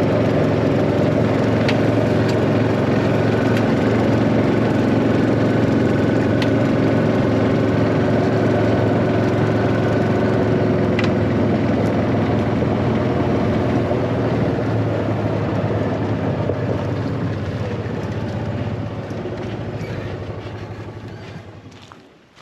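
A vehicle engine running steadily with a low hum and a few light rattles. It eases down over the last several seconds and cuts out near the end.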